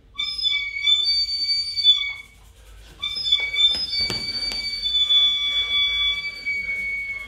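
Live stage music: two long, high held notes, the first lasting about two seconds and the second, after a short gap, held for about four seconds. A few sharp knocks sound in the middle of the second note.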